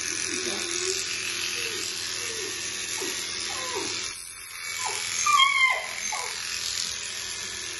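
Electric dog grooming clippers buzzing steadily as they cut a Welsh Terrier's head coat, dropping away briefly about four seconds in. Just after that comes a short high whine, the loudest moment.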